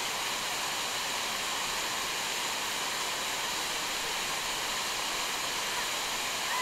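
Waterfall: heavy white water rushing steadily over rock ledges, an unbroken rushing noise at constant level.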